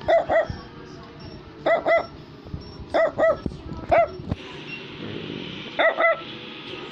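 Brussels Griffon, a small toy dog, barking in short barks, mostly in quick pairs, repeated every second or two.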